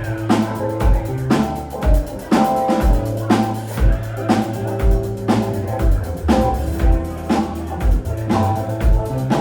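Live rock band playing an instrumental passage on drum kit, electric bass, guitar and keys. The bass drum lands about once a second with snare hits between, under held bass notes and chords.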